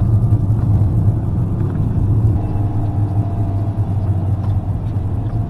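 Motorhome engine and road noise heard from inside the cab as it climbs a mountain road: a steady low drone, with a faint higher tone about halfway through.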